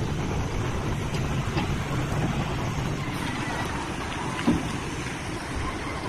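TB XE220SL amphibious excavator's diesel engine running steadily, with a single sharp knock about two-thirds of the way through.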